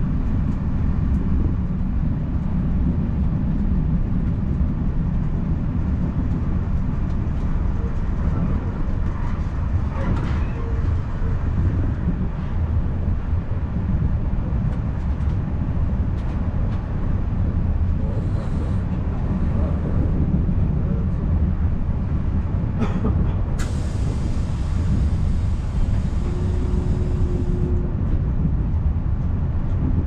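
Passenger train running along the track, heard from inside the carriage: a steady, low rumble of wheels on rails. About 23 seconds in there is a sharp click, followed by a few seconds of high hiss.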